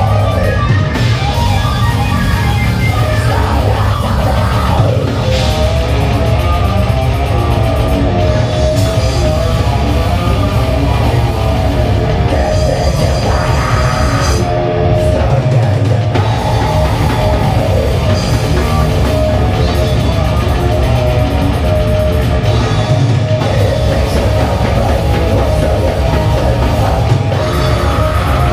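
Death metal band playing live: drum kit, distorted electric guitar and bass guitar in a loud, dense wall of sound with no breaks.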